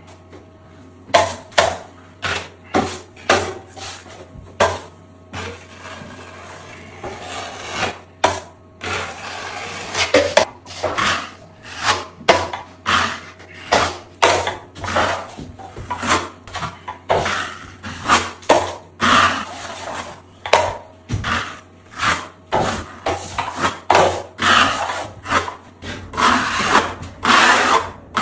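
A hand tool rasping back and forth against a surface in steady repeated strokes, roughly one to two a second, over a faint steady low hum.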